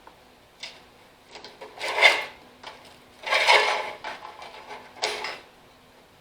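Hands handling and routing a wiring harness on a lawn tractor: a series of short scrapes, rustles and knocks, the loudest about two and three and a half seconds in.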